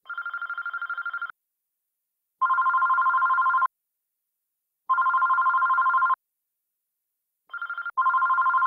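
Landline desk telephone ringing: four warbling two-tone rings, each about a second and a quarter long, with pauses of just over a second between them. The first ring is quieter than the others.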